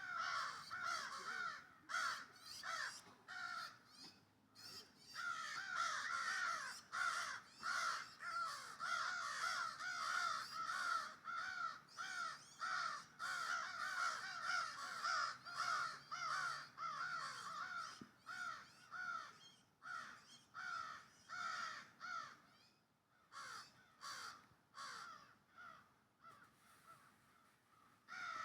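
Baby bird calling over and over, short pitched notes coming several a second in long runs, with a brief lull near the end.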